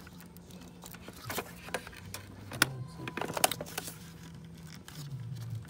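Plastic clicks and rattles of a gloved hand working vacuum hoses and connectors under an intake manifold, with a few sharp clicks, the loudest about two and a half and three and a half seconds in. Low background music runs underneath.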